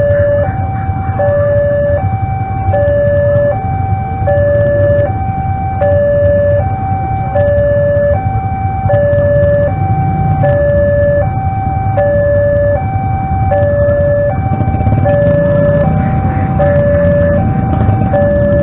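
Railway level-crossing warning alarm sounding an electronic two-tone signal, a higher and a lower tone alternating about every three-quarters of a second, the sign that a train is approaching and the crossing is closed. Underneath runs a low engine rumble from waiting motorcycles.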